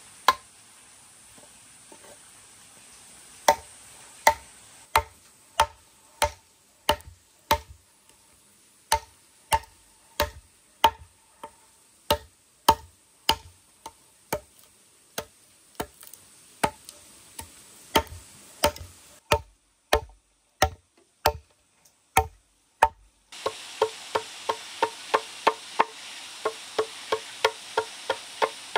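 Metal tools striking a wooden log in steady, evenly spaced blows as it is carved into a trough, each blow with a short metallic ring. Near the end a hammer taps faster, about three blows a second.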